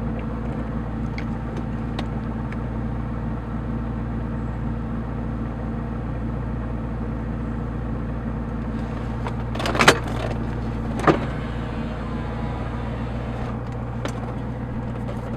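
Steady drone of a Ford Mustang's engine and road noise heard from inside the cabin while driving, with an even low hum. Two sharp knocks stand out about ten and eleven seconds in.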